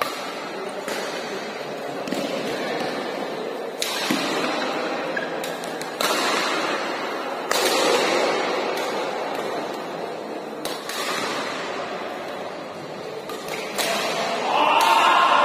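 Badminton rally: sharp cracks of rackets hitting the shuttlecock, a second or several apart, echoing in a large hall over a background hum of onlookers. Near the end, as the point is won, players shout loudly.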